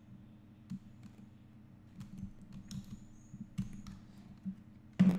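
Scattered computer mouse and keyboard clicks from someone working at a desk, a few at a time, over a faint steady hum. One louder click comes near the end.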